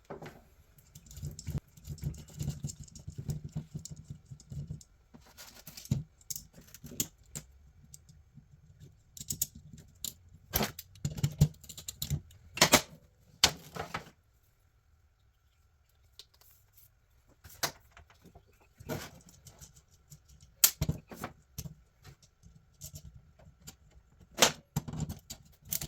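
Scattered metallic clicks, clinks and light knocks as heavy battery cables and their terminal hardware are handled and fastened, with a short quiet gap about halfway through.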